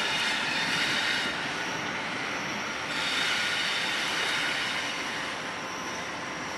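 Freight train hauled by MRS diesel-electric locomotives rolling slowly, its wheels squealing against the rails. The squeal swells in the first second and again about three seconds in.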